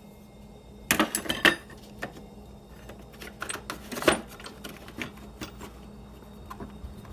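Metal hand tools being handled, clinking and clattering against each other: a cluster of sharp clinks about a second in, then scattered lighter clicks with a louder knock near the middle.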